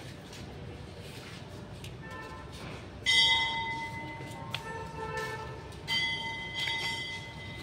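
A bell rings: a loud strike about three seconds in and another near six seconds, with a fainter one between. Each strike rings on in several clear tones and slowly fades.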